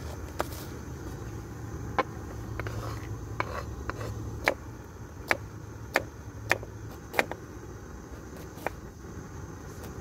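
Knife chopping vegetables on a wooden chopping board: about ten sharp taps at an uneven pace, over a low steady rumble.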